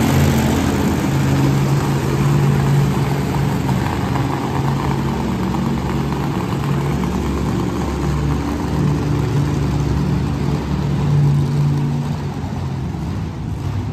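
Monster truck engines running loudly, their low engine note holding and shifting as the trucks idle and drive.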